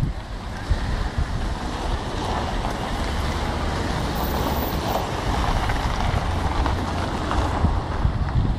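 Road traffic: cars creeping past in a slow queue, their engines and tyres running steadily, with wind buffeting the microphone.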